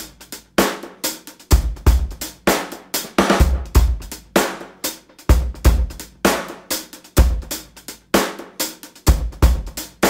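Background music: a drum-kit beat with kick drum, snare and hi-hat repeating at a steady tempo.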